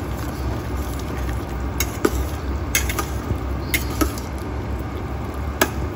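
Metal spatula stirring chicken pieces through thick simmering sauce in a stainless steel pan, with about six sharp clacks of the spatula against the pan from about two seconds in, over a steady low rumble. The sauce is being stirred as cornstarch slurry thickens it.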